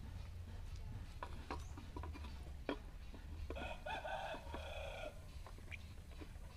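Light clicks and scrapes of a small hand tool working a brass piece. About halfway through, a rooster crows once for about a second and a half.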